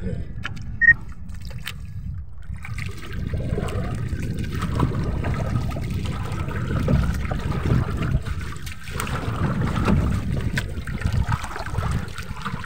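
Water sloshing and trickling as a wooden paddle is drawn through it beside a small outrigger boat, in irregular surges. There is a sharp knock about a second in.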